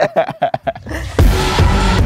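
A person laughing in short rapid bursts. About a second in, background music cuts in with a deep bass hit and keeps going.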